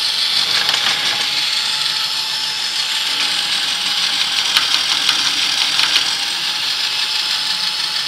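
Electric drill spinning a homemade plucker head, a 4-inch PVC cap fitted with cut tie-down-strap fingers, running steadily at speed.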